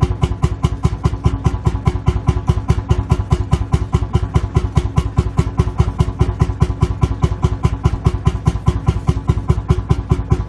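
Lanz Bulldog tractor's single-cylinder two-stroke hot-bulb engine idling, a steady deep beat of about five exhaust pulses a second.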